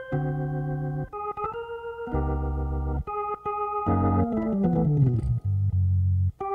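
Hammond organ playing held chords over low bass notes, with a quick falling run of notes about four seconds in.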